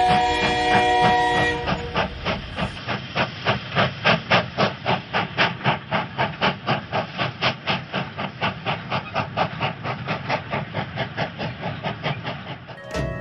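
Steam locomotive whistle sounding and fading out about two seconds in, over the engine's chuffing. The engine then goes on alone with a steady, even rhythm of exhaust chuffs.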